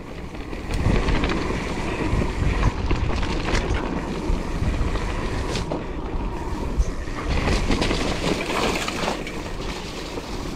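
Wind rushing over the microphone while a mountain bike is ridden fast down a dirt trail. Its tyres rumble over the ground, with occasional sharp knocks as the bike hits bumps.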